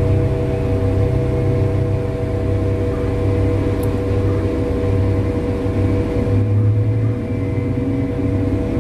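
Mining haul truck's diesel engine running while driving, heard from inside the cab: a steady low drone with a constant whine above it.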